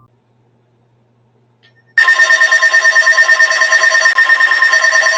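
Emergency Alert System attention tone cutting in abruptly about two seconds in: a loud, harsh, steady alarm tone announcing a severe thunderstorm warning broadcast.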